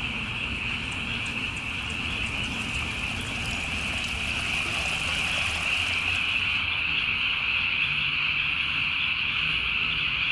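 Dense chorus of California tree frogs calling, their calls merging into one steady high-pitched din.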